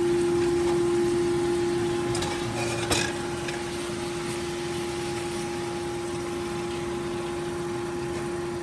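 Pork boiling broth pouring into a pot of menudo, trailing off after about two seconds, followed by a clink of the emptied container near three seconds. The pot then hisses steadily over a constant hum.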